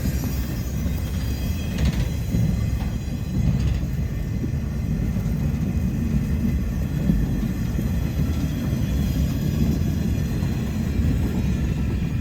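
Diesel locomotives of an arriving train running with a steady low rumble as the train pulls slowly into the station.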